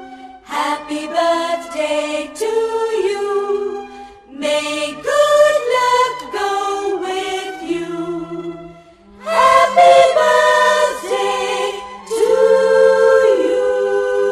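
Background music: a sung melody with choir-like voices, in phrases of several notes with long held notes near the end.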